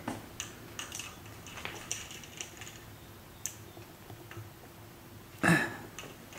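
Handling noise from a handheld camera being moved: scattered light clicks and taps, with one louder knock about five and a half seconds in.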